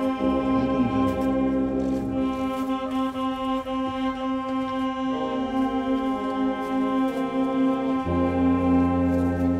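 Slow, solemn brass music. Sustained chords sit over one steady held note, and the lower notes change every second or two; a fuller low chord comes in about eight seconds in.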